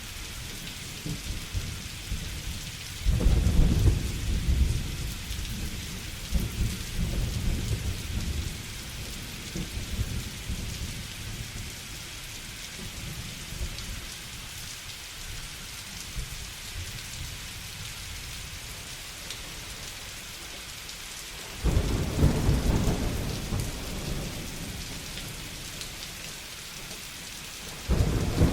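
Steady rain with rolling thunder. A loud thunderclap breaks about three seconds in and rumbles away over several seconds, another comes about twenty-two seconds in, and a third begins at the very end.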